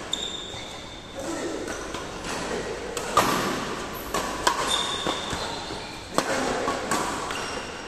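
Badminton rackets striking a shuttlecock: several sharp, crisp hits spread through a rally, each echoing in the large hall, with brief high-pitched squeaks of court shoes on the floor between them.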